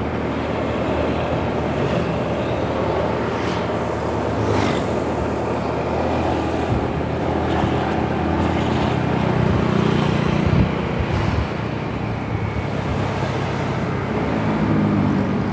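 Roadside traffic: a vehicle engine running as it goes by, loudest a little past the middle, over steady road noise.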